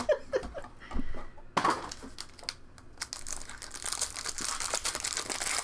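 A few light knocks as a trading-card box is handled, then the foil wrapper of a Topps Chrome card pack crinkling and tearing as it is unwrapped by hand, a dense continuous crinkle from about a second and a half in.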